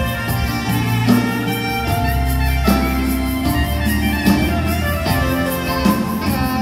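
Live smooth-jazz band playing: a saxophone melody over keyboards, bass and a steady cymbal beat, recorded from the audience in a concert hall.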